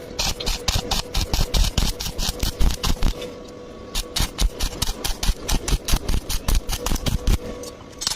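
A rapid series of sharp mechanical taps, several a second, in two runs of about three seconds with a short pause between, over a faint steady hum.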